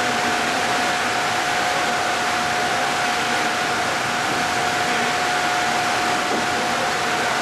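NOSMA cabbage cleaning machine running: a steady, loud rush of blown air with a constant whine over it.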